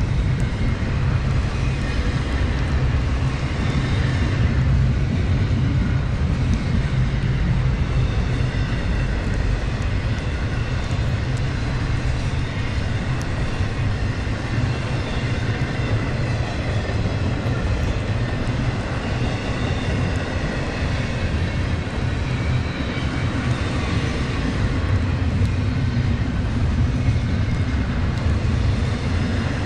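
Double-stack intermodal freight train rolling past at close range, a steady low rumble of wagons and wheels on the rails with faint high wheel whine.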